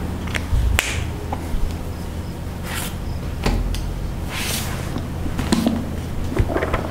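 Room tone with a steady low electrical hum, broken by scattered light clicks, knocks and brief rustling swishes.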